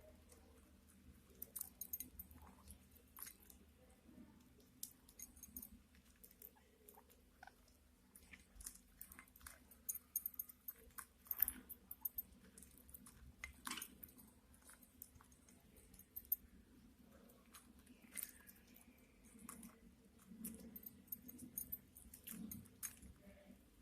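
Budgerigars eating: faint, irregular clicks and crunches of their beaks pecking at and chewing food.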